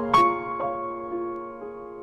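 Background piano music: a chord struck just after the start, then a few soft single notes left to ring and fade.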